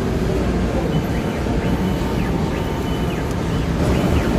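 Steady loud din of running machinery in a large exhibition hall: a dense, even noise, with a faint high tone that repeatedly rises, holds and drops back.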